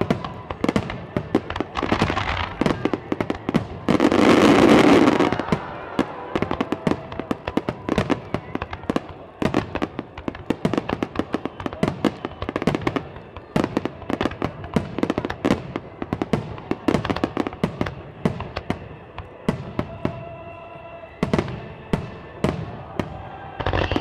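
Fireworks display: a dense run of sharp crackling pops and bangs, with one louder rushing burst about four seconds in. Music plays faintly underneath.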